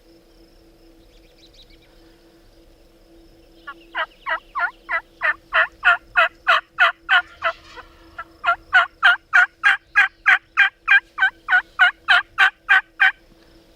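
Wild turkey yelping: two long runs of loud, evenly spaced yelps, about three and a half a second, with a short break near the middle.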